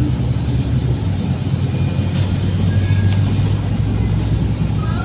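Steady low drone of a moving air-conditioned bus, heard from inside the passenger cabin.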